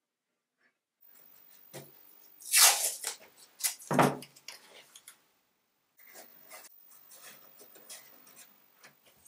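Blue painter's tape pulled off the roll with a loud rip, then a short tear, and a knock as the roll is set down on the wooden bench. After that come quieter rustling and rubbing as tape strips are pressed onto the mitered corners of a wooden frame.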